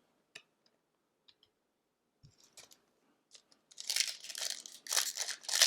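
A few faint clicks of cards being handled, then, from about two-thirds of the way in, a hockey card pack's wrapper crinkling loudly as it is torn open.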